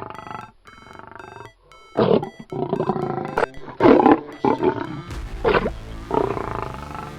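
Lion roaring in a series of short, loud roars about a second apart, with background music playing underneath.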